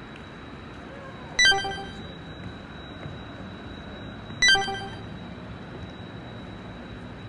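Two bright bell-like chime sound effects, about three seconds apart, each struck once and ringing away within half a second, over steady outdoor background noise and a thin, steady high tone.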